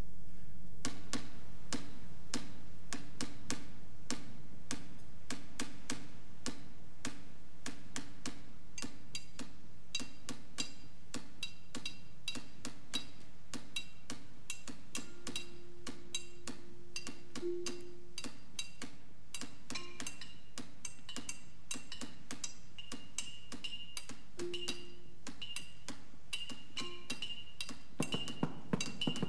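Percussion ensemble playing: a long run of sharp, uneven clicking strikes that grows denser, with a few held pitched notes in the middle and a fuller, louder sound coming in near the end.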